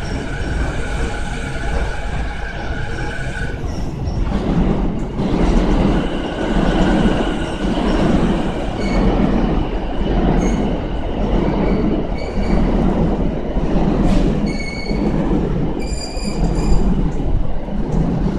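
JR East E233-6000 series electric train pulling into the platform and slowing: a steady electric motor whine for the first few seconds, then its wheels clacking over rail joints about once every second and a bit, with short high brake squeals in the second half.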